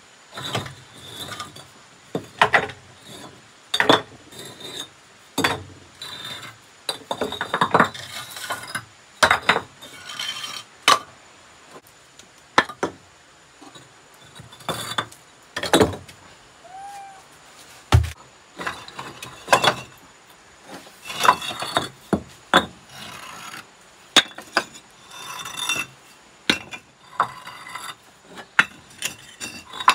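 A run of irregular clinks and knocks of hard objects handled or struck, one every second or so, some leaving a brief ring.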